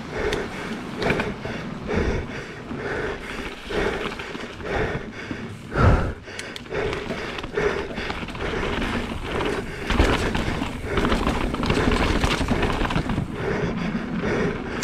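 Mountain bike running down a rough, rocky trail: continuous tyre and frame rattle with two heavy thumps about six and ten seconds in as the bike hits obstacles, under the rider's hard, rhythmic breathing about once a second from the effort of the race run.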